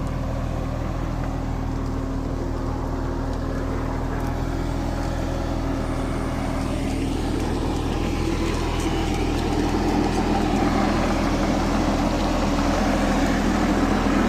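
Diesel engine of heavy machinery running steadily, growing a little louder and busier in the second half.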